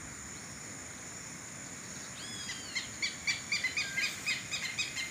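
A bird calling: a short gliding call about two seconds in, then a quick run of sharp repeated notes, about four a second, over a steady outdoor hiss.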